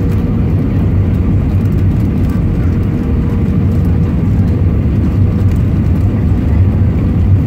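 Airbus A320 cabin noise on approach to landing, heard inside the cabin from a window seat: a steady low rumble of engines and airflow with a faint steady tone above it.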